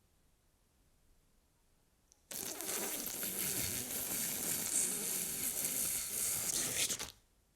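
A sudden loud burst of hissing noise, lasting about five seconds, that starts abruptly a couple of seconds in and cuts off sharply.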